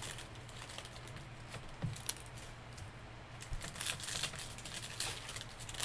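Scattered light clicks and rustles of trading cards and pack wrappers being handled, the sharpest click about two seconds in, over a steady low hum.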